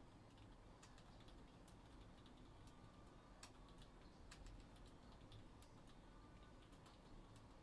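Near silence: low room tone with faint, irregular clicks scattered throughout.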